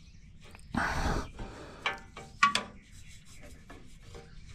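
Hand rubbing and scraping as a new oxygen sensor is put in on the exhaust, with a longer scrape about a second in and a few short sharp scrapes or squeaks near the middle.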